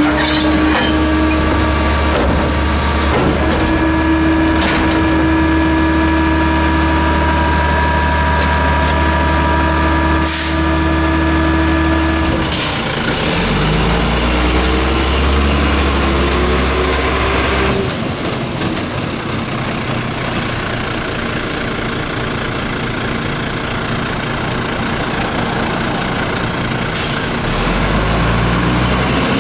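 WhiteGMC WXLL garbage truck with a Leach Beta rear-load body running. For about the first half its engine holds a steady high whine; then the engine revs up and falls back, with a few short sharp sounds along the way.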